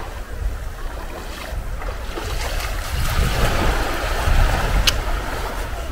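Small waves washing onto a sandy beach, with wind rumbling on the microphone; the wash of the surf grows louder about halfway through.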